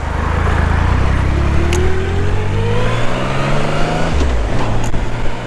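Motorcycle engine accelerating, its pitch rising steadily for about four seconds, then dropping suddenly at a gear change and holding steady, with wind rushing over a helmet-mounted mic on an open-face helmet with no windscreen on the bike.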